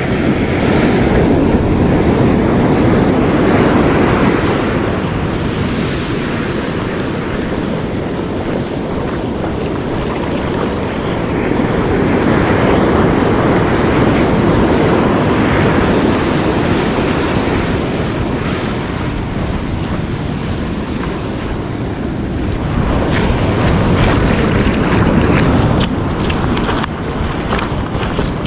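Ocean surf breaking and washing up a sand beach, mixed with heavy wind buffeting on the microphone; the rush swells and eases every several seconds.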